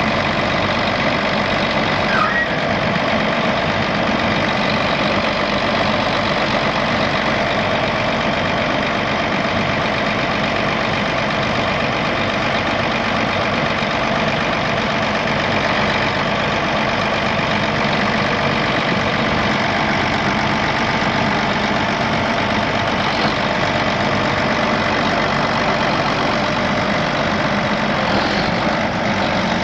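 2001 John Deere 9400 4WD tractor's 12.5L diesel engine idling steadily, with no change in speed.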